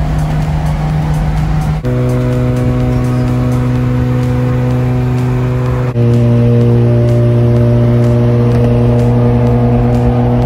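Car engine droning steadily at highway cruising speed over tyre and wind noise. The engine note holds a constant pitch and changes abruptly twice, about two seconds in and again about six seconds in.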